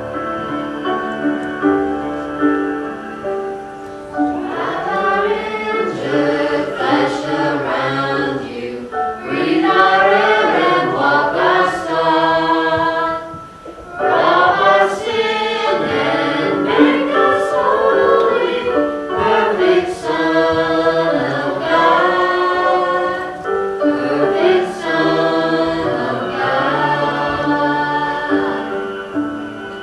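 A small church praise team singing together in chorus. The singing drops away briefly about halfway through, then picks up again.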